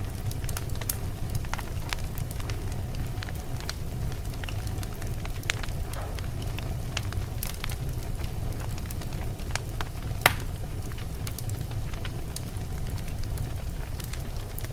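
Fire burning steadily with a low rumble, crackling and popping irregularly throughout; one sharp pop about ten seconds in is the loudest.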